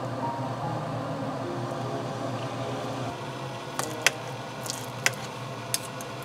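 A clay pot of broth boiling with a steady bubbling noise, then a metal spoon clinking and scraping against an enamel tray four times as meatball mixture is scooped out, in the second half.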